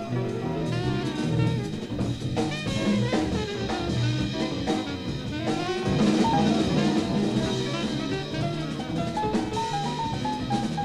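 Small-group bebop jazz recording: drum kit and bass under a horn playing quickly moving melodic lines.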